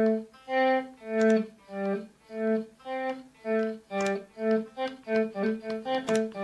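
Guitar notes faded in and out one by one with a volume pedal, the volume swells softening each attack so that the notes sound bowed and violin-like. There are about two swelled notes a second, coming faster after the midpoint.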